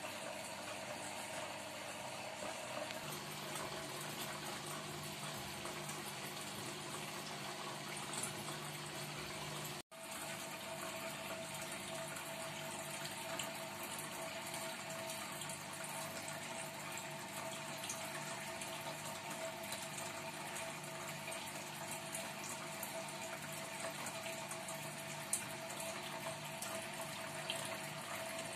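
Small aquarium water pump or filter running steadily with a faint hum, water trickling and splashing back into a shallow turtle tank.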